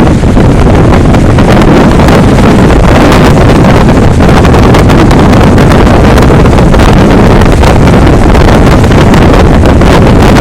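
Gale-force wind buffeting the camera microphone, a loud, constant rumbling roar that overloads the recording.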